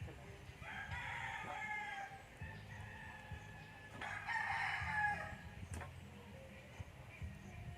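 A rooster crowing twice, each crow lasting about a second and a half, the second one louder, about four seconds in.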